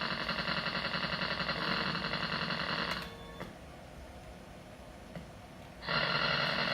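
ESS AudioDrive ES1868F sound card putting out loud glitchy noise: a dense buzz of many steady tones at once. It cuts off about three seconds in, leaving a faint hiss, and starts again about six seconds in.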